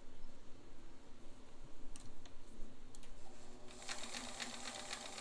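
Vintage Bernina sewing machine starting to sew about three-quarters of the way in, running at a steady speed with a rapid, even ticking from the needle and feed mechanism, after a few light clicks. It is stitching a zigzag test row to check for stitch interruptions that would point to worn or cracked gears.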